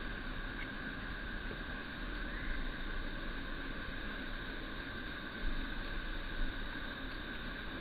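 Steady drone of an insect chorus, held at the same pitch throughout, over a constant hiss and a low rumble.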